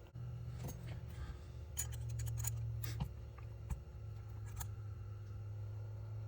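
Scattered light clicks and taps from handling a small sailboat furling drum and its line, over a low steady hum that starts at the outset.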